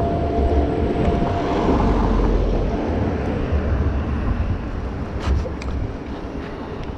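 Wind and road rumble while riding an electric kick scooter, the tyres passing from asphalt onto paving bricks as it slows, with a couple of sharp rattling knocks about five seconds in.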